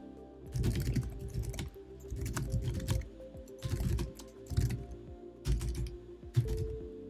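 Typing on a computer keyboard: several short runs of rapid key clicks with pauses between them, over steady background music.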